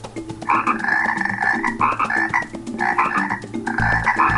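Frog croaking: four croaks in a row, each under a second long.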